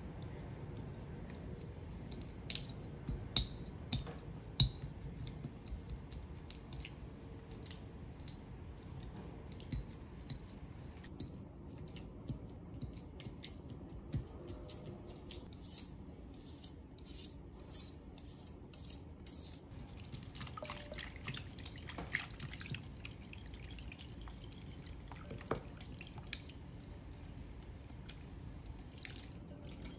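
Cream cheese being mashed and stirred in a glass mixing bowl: soft, sticky squelching with scattered clicks and taps of the utensil against the glass. Near the end a wire whisk stirs the thinner cream-cheese-and-milk mixture with wet swishing.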